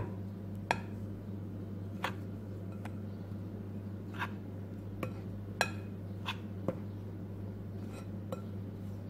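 Metal spoon stirring a dry flour mixture in a metal mixing bowl, clinking against the bowl about nine times at irregular intervals, over a steady low hum.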